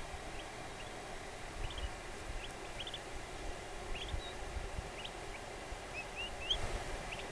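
Eastern wild turkey poults, three days old, peeping: short, high chirps that rise in pitch, scattered irregularly and sometimes coming in quick runs. Faint low thumps sound underneath.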